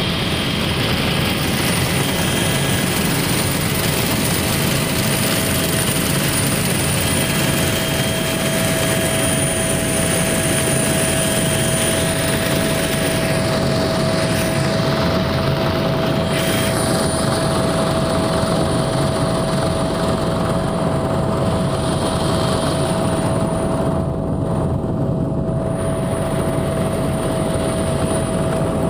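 Helicopter in cruise flight heard from inside the passenger cabin: a loud, steady drone of rotor and turbine engine with a constant high whine.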